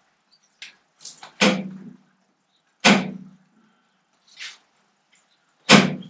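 Hammer blows on the steel parts of a Fordson Major tractor's clutch pedal assembly, knocking a part out against a socket held behind it: three heavy strikes, spaced unevenly, with a few lighter knocks between.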